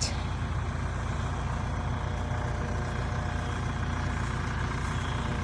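A large engine running steadily at an even speed, a low constant drone with no change in pitch.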